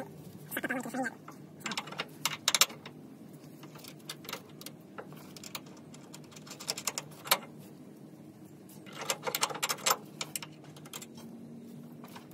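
Light metallic clicks and rattles from bolts and a steel air-spring bracket being handled and fitted by hand to a pickup's frame rail, coming in three short clusters.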